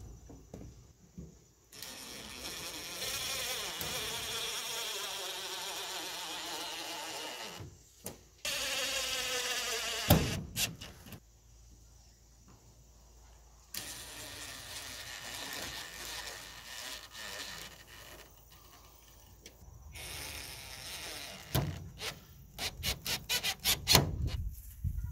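DeWalt brushless cordless driver whirring in several runs of a few seconds each as it drives screws into the door frame; one run drops in pitch as the motor slows. Near the end comes a quick series of sharp clicks.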